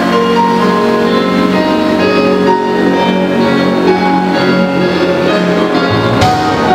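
Instrumental intro of a song's backing track, long held notes with no voice, which fills out near the end just before the singing comes in.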